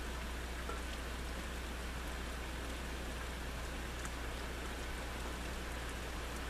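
Steady rain falling, an even hiss with scattered faint drop ticks, over a steady low hum.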